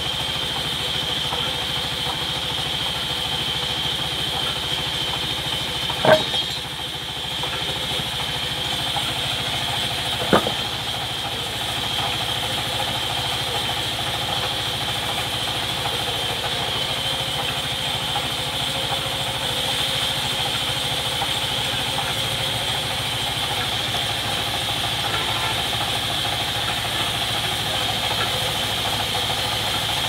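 Sawmill band saw running steadily with no log in the cut: a constant machine hum with a steady high whine. Two sharp knocks break it, about four seconds apart.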